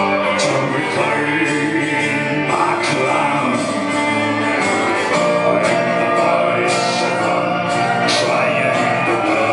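Live band music: held sung voices in chorus over the band, with sharp cymbal-like hits about once a second.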